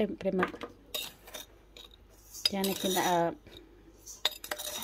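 Metal spoons clinking against a stainless steel mixing bowl, with a cluster of sharp clinks about a second in and more near the end.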